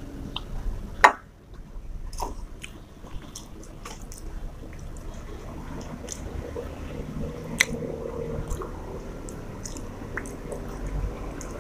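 Fingers squishing rice and curry together on a steel plate, with chewing, and one sharp metal clink about a second in as a small steel bowl is set down on the table.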